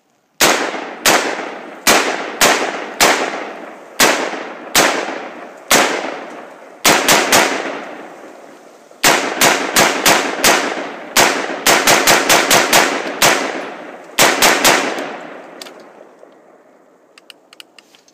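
An AR-15 rifle fired semi-automatically, around thirty shots, each with an echoing tail. Evenly spaced single shots come first, then quick strings of rapid fire, and the last shot echoes away about fifteen seconds in.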